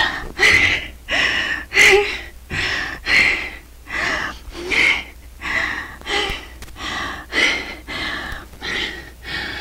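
A young woman sobbing in quick, gasping breaths, about two a second, with a whimpering voice on some of them: distressed crying.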